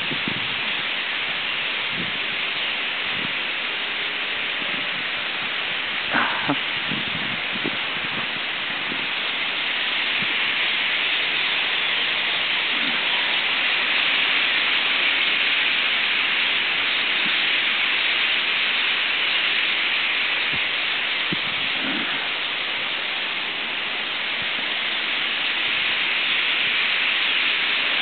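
Massed calling of a huge winter roost of European starlings: thousands of birds chattering at once, blending into a dense, steady hiss that grows a little louder about a third of the way in.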